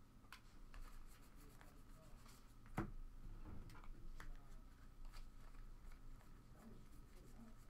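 Faint rustling, sliding and light clicks of trading cards being handled and flipped through from a pack, with one sharper tap about three seconds in.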